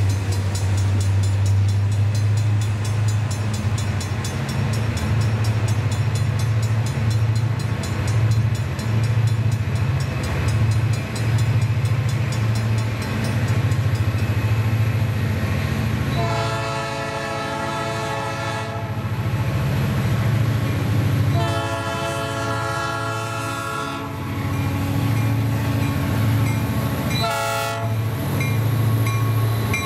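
Diesel locomotive horn sounding two long blasts and a short one, the opening of the long-long-short-long grade crossing signal, from an approaching freight led by an EMD SD40M-2. A low steady rumble runs underneath throughout.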